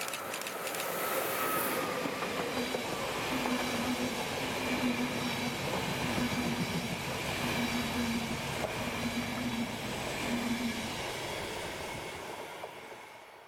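Electric locomotive passing at speed with a passenger train: a sharp hiss and a short falling whine as the locomotive goes by about a second in, then the coaches rolling past with a steady rumble and a low hum that comes and goes, fading away near the end.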